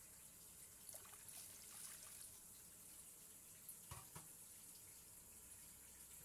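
Pot of coconut-milk laksa broth heating toward a boil: a faint steady hiss with a few soft bubbling pops, about a second in and again around four seconds in.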